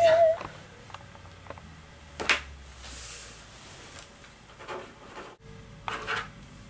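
A wavering, theremin-like tone cuts off just after the start, leaving a quiet room with one sharp click a couple of seconds in and a few faint rustles near the end.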